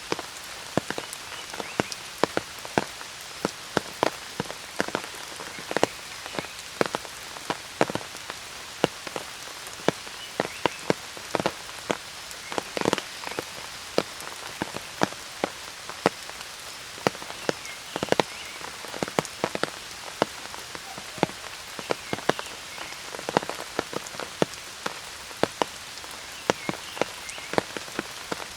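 Rain falling steadily, with many sharp, irregular taps of large drops striking an umbrella close by.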